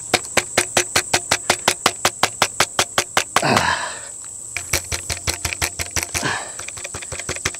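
Steady high-pitched insect trill, crickets, under a fast regular clicking of about seven clicks a second. About three and a half seconds in, a falling whoosh briefly breaks the clicking, which then resumes.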